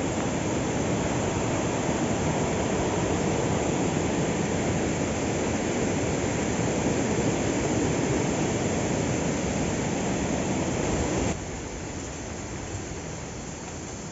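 Steady rushing of a rocky stream's flowing water. About eleven seconds in, it drops suddenly to a quieter rush.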